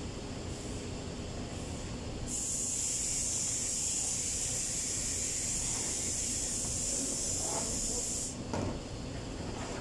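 A steady high hiss starts about two seconds in, runs for about six seconds and cuts off suddenly, followed by a brief knock.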